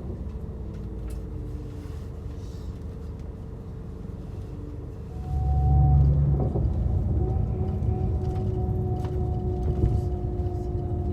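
Bus running on the road, heard from inside: a steady low rumble with a whine that comes in about five seconds in, and a louder surge of rumble shortly after.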